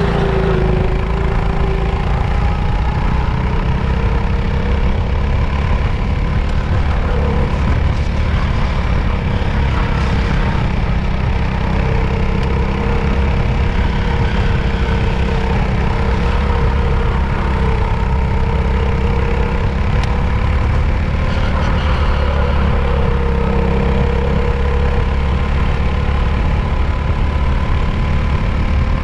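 Racing go-kart engine running hard at racing speed, its pitch rising and falling a little through the corners, over a dense low rumble.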